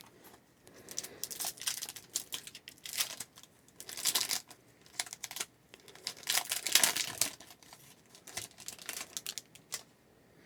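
A foil trading card pack wrapper being torn open and crinkled in the hands, in a series of irregular rustles, the loudest about four seconds in and again near seven seconds.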